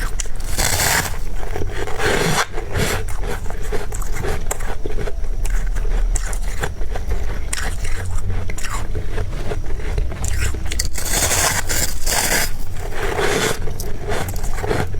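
Freezer frost being scraped and crunched in the mouth: close, dense crackly bites and chewing, with longer scraping bursts about a second in and again from about eleven to thirteen seconds.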